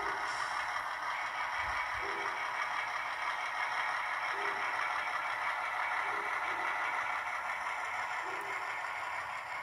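Model train running slowly along the layout track: a steady running noise from its motor and wheels, with a short soft sound repeating every second or two.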